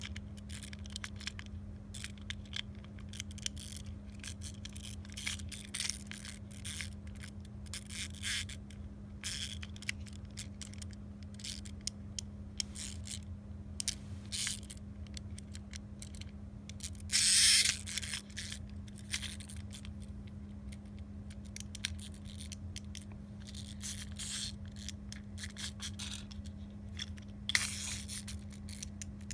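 Scattered clicks and scrapes of a plastic wind-up toy being handled while its winding key is turned, with a louder scrape about seventeen seconds in.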